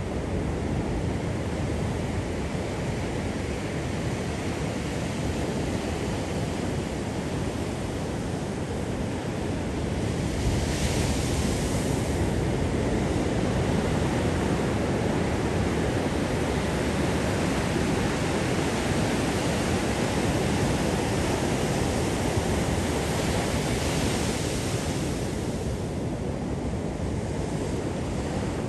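Ocean surf on a beach: a steady low wash of waves, swelling into a hissier break about ten seconds in and again about twenty-three seconds in.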